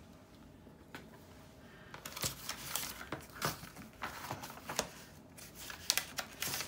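Paper rustling with light knocks and taps as an old book is set down and its pages are handled and leafed through, starting about two seconds in.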